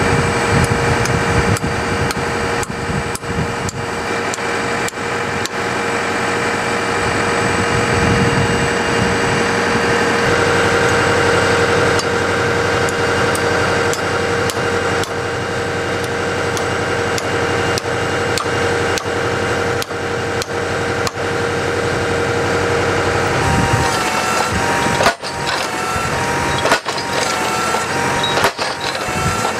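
Tractor engine running steadily beside a tractor-mounted post driver, with scattered knocks of a hammer on a wooden fence post. The engine's tone strengthens about a third of the way in and shifts near the end.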